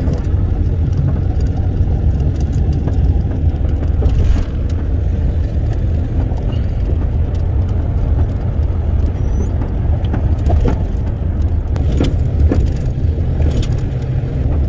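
Steady low rumble of a semi truck's engine and tyres at highway speed, heard inside the cab, with a few small clicks and rattles.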